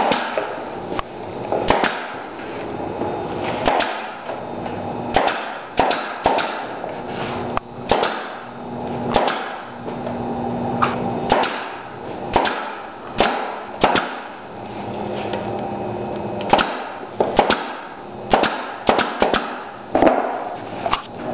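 Pneumatic fastening gun firing repeatedly into the wooden track, sharp shots about a second apart with a short pause a little past halfway. A low steady hum runs under them.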